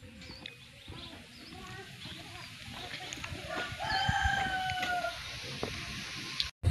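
A rooster crowing once, a long drawn-out crow held for over a second about three and a half seconds in, with a few faint chirps of small birds around it.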